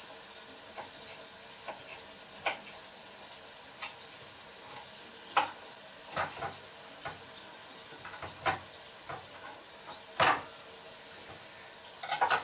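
Pieces of braising steak sizzling steadily as they brown in hot lard in a big pot, with irregular clicks and knocks throughout, the loudest about 5, 6, 8½ and 10 seconds in.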